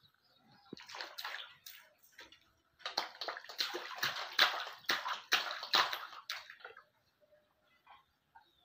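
Water splashing and sloshing in a small plastic tub as a toddler slaps at it with his hands: a short spell about a second in, then a longer stretch of splashing from about three seconds in to nearly seven.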